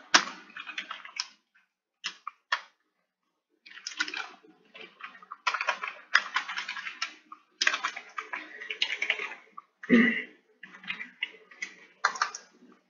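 Computer keyboard typing in quick bursts of keystrokes with short pauses between them.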